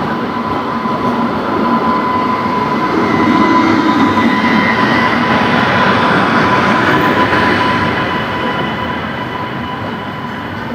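Passenger coaches of an Indian Railways express train rolling past a platform as the train arrives, a continuous rumble of wheels and running gear with a thin, steady high squeal through it. It swells to its loudest in the middle and eases toward the end.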